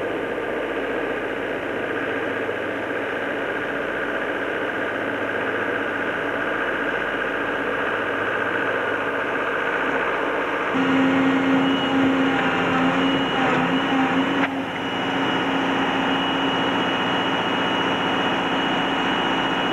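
A digger's engine running steadily. About eleven seconds in its note changes and it grows a little louder.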